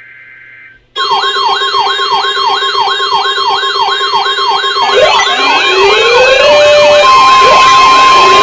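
Loud electronic sirens. About a second in, a siren starts cycling rapidly, two to three falling sweeps a second, over a steady tone. From about five seconds in, slower rising wail sweeps layer on top, and a steady high tone joins near the end.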